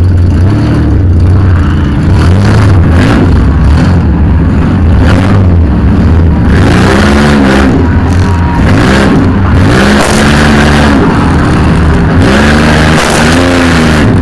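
Demolition-derby van's engine running, heard from inside the cab. It is revved up and let back down three times in the second half.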